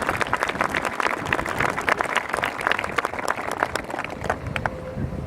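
Audience applauding, the claps thinning out and dying away near the end.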